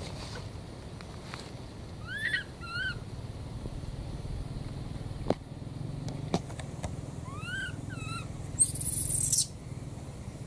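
Baby macaque giving short, high cries that rise and fall, two at a time, twice about five seconds apart. Between them come two sharp clicks, and a brief loud hiss sounds near the end, over a steady low rumble.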